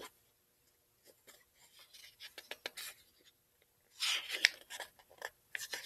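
Picture-book page handled and turned: a few faint taps and rubs of fingers on the paper, then from about four seconds in a scratchy, papery rustle as the page is turned over.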